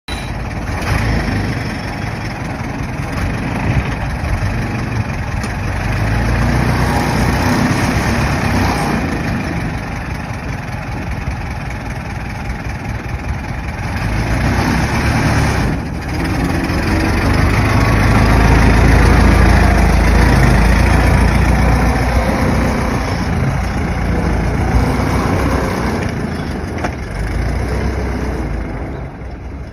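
Vintage car engine running. Its level swells and eases, with a brief dip about sixteen seconds in; it is loudest a little past the middle and falls off near the end.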